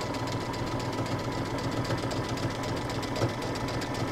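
Home sewing machine running steadily at speed, sewing a dense zigzag satin stitch: an even motor hum with rapid, regular needle strokes.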